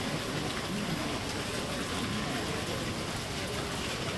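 Trevi Fountain's cascades splashing into the basin: a steady rush of falling water.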